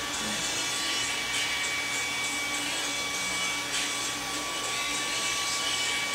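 Handheld hair dryer running steadily: a constant high motor whine over rushing air.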